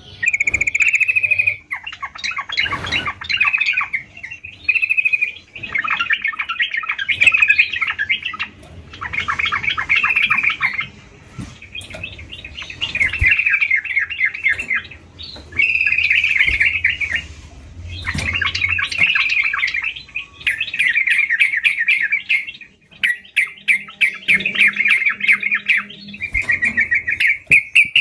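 Yellow-vented bulbul (trucukan) singing steadily: repeated bursts of rapid, bubbly chattering phrases, each a second or two long, with short pauses between them.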